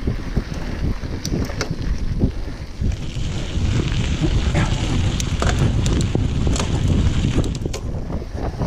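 Wind buffeting the microphone of a mountain bike's action camera on a fast descent, a heavy rumble, over the crunch of knobby tyres on a dirt and gravel trail and the rattle of the bike over bumps. The tyre hiss grows louder about a third of the way in.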